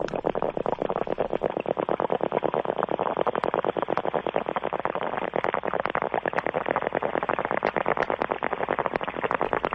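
A sound effect from the show's cart library played on air: a dense, rapid, even pulsing noise, many pulses a second, keeping steady throughout.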